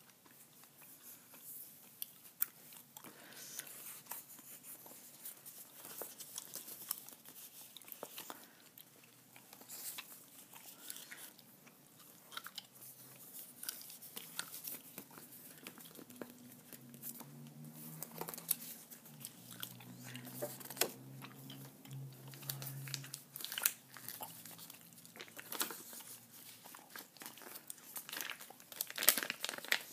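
Close-miked gum chewing: a steady run of small wet clicks and smacks, with the soft rustle of sticker sheets being handled.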